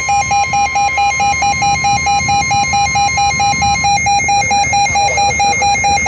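Midland WR120 NOAA weather radio sounding its warning alarm for a severe thunderstorm warning: rapid electronic beeping, about five beeps a second, over a steady high tone that stops about four seconds in.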